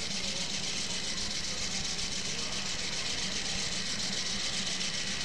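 Diesel locomotive engine running at a steady, even level, a low hum under a constant hiss.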